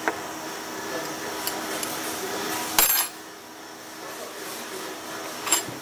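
Short bursts of gas hissing, with light metallic clicks, at the pressure gauge fitted to the shock absorber reservoir's Schrader valve as its gas pressure is checked. The louder burst comes about three seconds in, a shorter one near the end.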